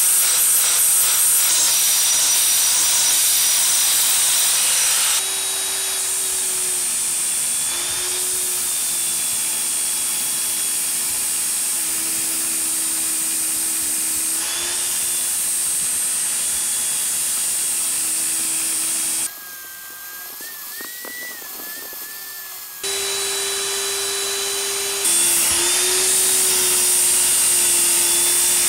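Power sanding of a rusty steel knife blade. First a handheld angle grinder with a sanding pad works the blade with a loud hiss. Then a motor-driven sanding disc grinds the blade with a steady motor whine and grinding hiss, which drops to a quieter, higher-pitched stretch for a few seconds after the middle before coming back.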